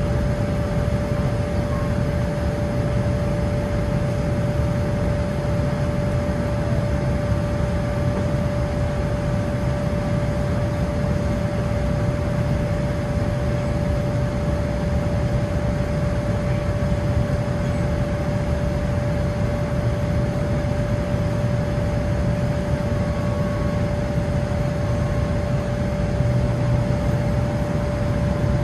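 Steady cabin noise of a Boeing 787-9 in flight, heard from a window seat beside its GE GEnx engine: a low, even rumble of engines and airflow with a steady hum on top.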